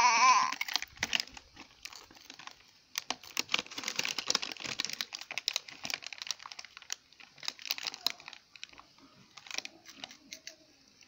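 A toddler's foil snack packet crinkling and crackling again and again as his hands rummage in it, after a short cry from the child right at the start.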